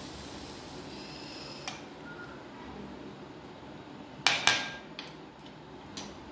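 Metal spoon knocking against a stainless steel bowl while stirring raita: a faint tap, then two sharp clinks in quick succession about four seconds in, with a brief metallic ring, and a light tap near the end.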